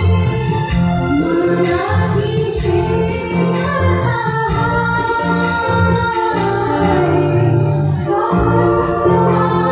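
Live Bengali band music: a woman singing a melody with long held notes into a microphone, over band accompaniment with a steady low beat.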